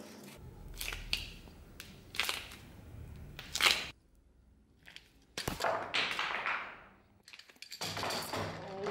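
Knocks and scrapes as a bar clamp holding glued wood blocks is handled on a wooden workbench, the loudest a sharp knock about three and a half seconds in. In the second half a cloth rubs across the bench top, wiping away spilled glue.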